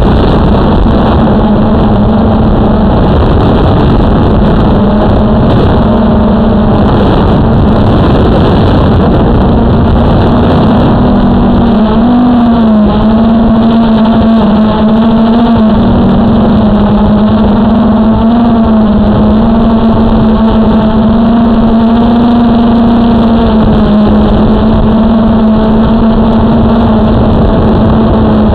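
Quadcopter drone's electric motors and propellers buzzing steadily in flight, heard close up through the onboard camera's microphone. The pitch wavers slightly as the motors change speed.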